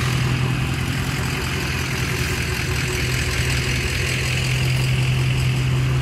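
Pickup truck engine idling steadily, with a constant low hum.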